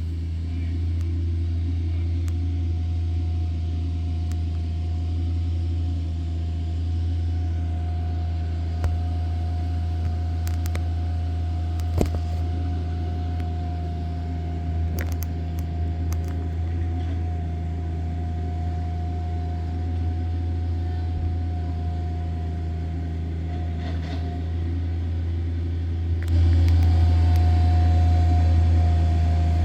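Wood chipper's engine running at a steady speed, a low drone with a steady whine above it and a few sharp clicks; it gets louder a few seconds before the end.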